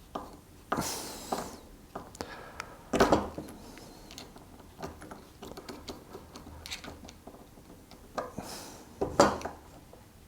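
Small metallic clicks and scrapes from a screwdriver tightening the clamping screws of a rhodium-plated banana plug held in a vise, with a few louder knocks about a second in, at three seconds and near the end.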